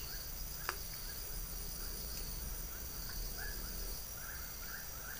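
Steady high-pitched insect chorus, with a faint chirping call repeating a few times a second and a single sharp click under a second in.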